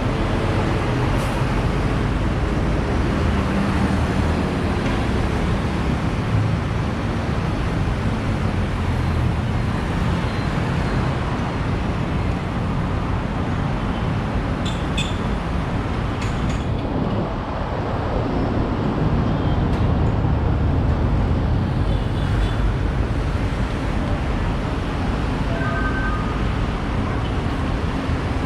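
Steady road traffic at a busy city roundabout: vehicle engines and tyres rumbling continuously, with a few brief clicks about halfway through.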